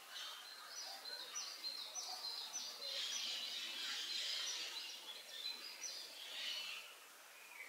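Small birds chirping: many short high notes, each dropping quickly in pitch, repeated over and over with a busier stretch of twittering in the middle.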